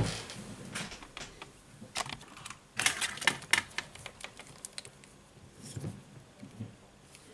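Quick, irregular clicks and taps of small tools and a test lead being handled on a workbench, thickest and loudest about three seconds in, then thinning out.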